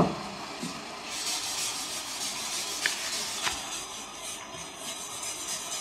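Soft rubbing of a wet wipe dipped in clear wax wiped back and forth over wax-coated embossed paper, taking the brown antiquing wax off the raised parts. A sharp knock at the start and two faint ticks near the middle.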